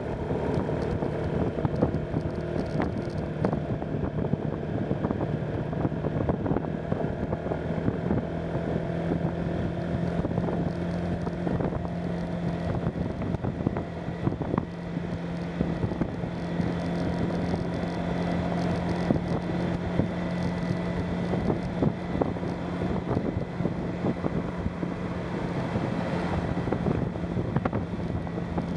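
Motorcycle engine running at a steady cruise, a constant low drone under wind buffeting the microphone and tyre and road rumble.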